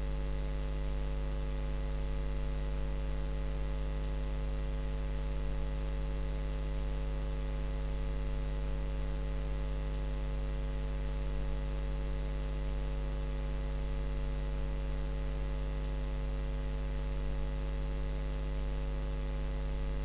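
Steady electrical mains hum: a strong low drone with a stack of steady higher tones above it, picked up by the recording chain.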